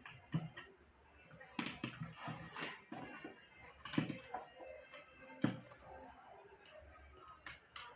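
Irregular knocks and clicks of a hair dryer and tools being handled during reassembly, about half a dozen uneven hard taps.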